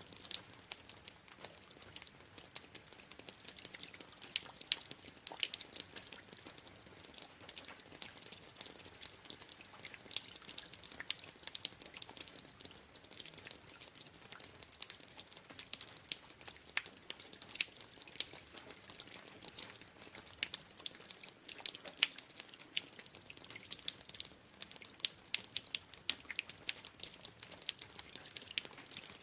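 Water dripping: many small drops falling in quick, irregular succession, each a short, bright tick.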